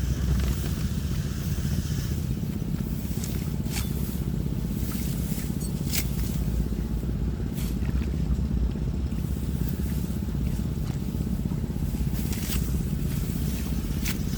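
A motor running steadily with a low, even rumble, with a few sharp clicks or ticks over it.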